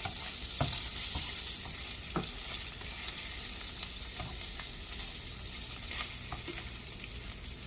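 Bacon sizzling steadily as it fries in a pan, with a few sharp clicks scattered through.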